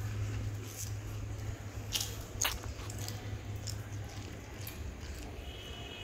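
Marinated paneer and vegetable skewers on a charcoal barbecue grill, sizzling softly over glowing coals. A few sharp crackles or clicks come between about two and five seconds in, over a steady low hum.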